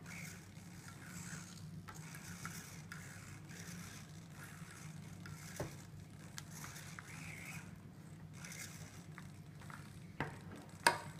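Hands handling FPV gear and cables: light scraping and rustling with a few sharp clicks, the loudest near the end, over a low steady hum.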